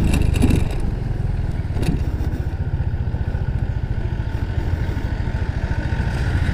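Yamaha Mio i 125 scooter's single-cylinder engine running steadily at low revs, with a short clatter in the first second.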